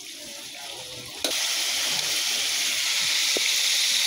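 Whole fish slid into a wok of hot cooking oil: a loud, steady frying sizzle starts suddenly about a second in and keeps going.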